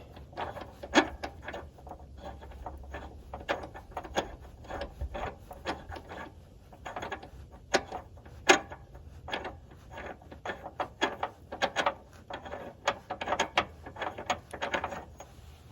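Hand ratchet clicking in repeated strokes while loosening the subframe bolts on a Hyundai Genesis Coupe 3.8, with many short sharp clicks coming in irregular clusters.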